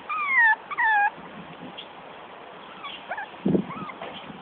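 Young Jack Russell x Patterdale terrier puppies whining: two loud, falling-pitched whines in the first second, then a few shorter, rising squeaks about three seconds in.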